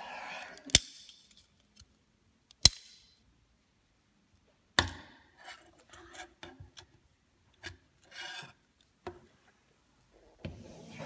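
Hard plastic model-kit parts being handled: three sharp clicks or knocks in the first five seconds, then fainter tapping and scraping.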